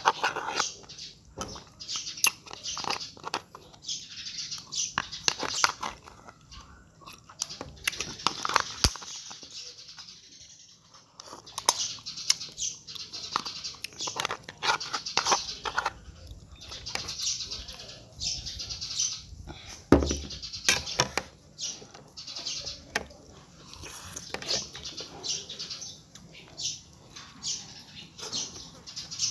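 Close-up eating sounds from a person working through a cooked crab: lip-smacking, sucking meat off the shell and fingers, and chewing, with many short clicks from handling the shell. The sounds come in irregular clusters, with a quieter stretch a few seconds before the middle.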